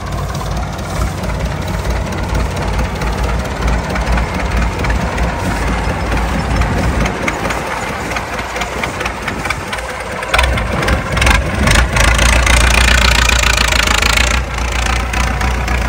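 Massey Ferguson 185 tractor's four-cylinder diesel engine running steadily, growing louder about ten seconds in.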